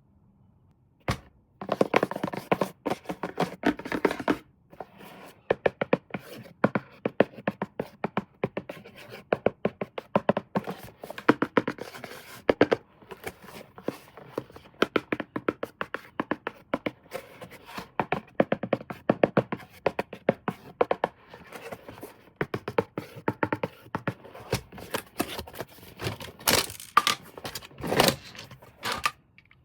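Toy packaging being handled and opened: a dense run of crackling, scraping and clicking, with a few louder knocks.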